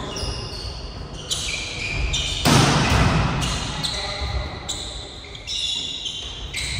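Volleyball rally sounds in a large gym: the ball being struck and sneakers squeaking on the court floor. The loudest hit comes about two and a half seconds in, and it all echoes around the hall.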